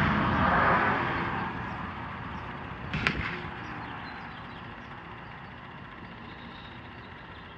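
Noise of a passing vehicle, loudest at the start and fading away over the first couple of seconds, with a single sharp click about three seconds in.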